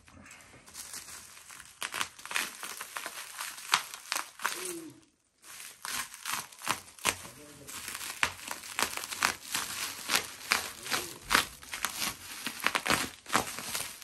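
Plastic bubble wrap crinkling and crackling as it is pulled and torn off a flat-packed cardboard box, with many sharp clicks and a short pause about five seconds in.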